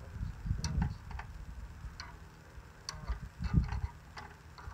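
Scattered small metallic clicks of a hand tool working a bolt on a riding lawn tractor's gas tank, some in quick little clusters, over low bumps of handling noise.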